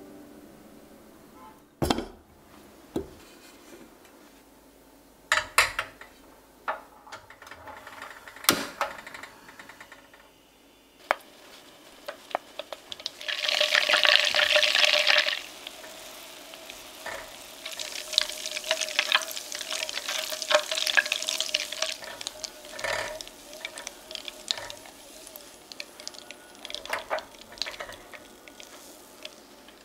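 Butter sizzling in a small enamel saucepan on a gas burner as it is cooked into brown butter, stirred with a spatula. A few knocks come first, then a loud hissing sizzle about halfway through. Steady crackling sizzle follows as the melted butter foams and browns.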